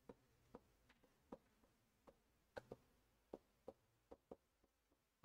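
Near silence with a dozen or so faint, irregular ticks of writing on a board.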